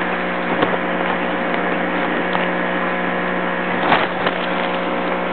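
Steady machinery hum of hatchery equipment, a constant low drone with a faint whine over it, with a few light clicks about half a second in and near four seconds.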